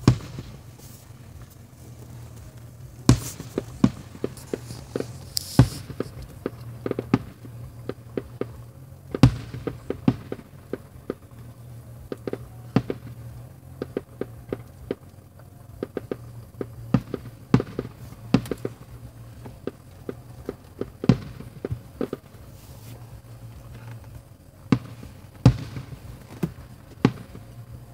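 Aerial fireworks shells bursting: dozens of sharp bangs and crackles at irregular intervals, with the loudest reports a few seconds in, about nine seconds in and near the end, over a low steady hum.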